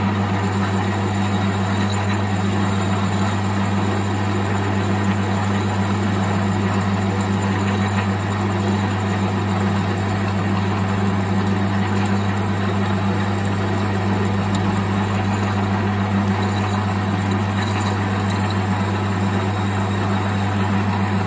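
Lathe running with a steady hum while an 8.5 mm drill bit, fed from the tailstock, drills into the workpiece.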